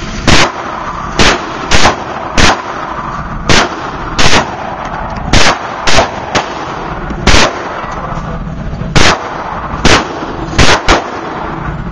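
Gunfire at a shooting range: about fourteen loud, sharp shots at irregular intervals, some less than a second apart, with a steady background noise between them.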